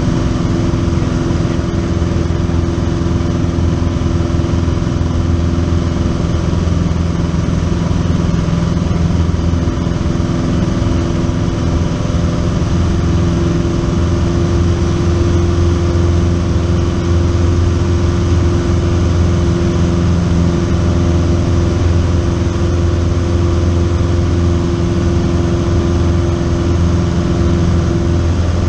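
A single-engine light plane's piston engine and propeller running steadily in flight, heard from inside the cabin as a constant low drone with wind noise.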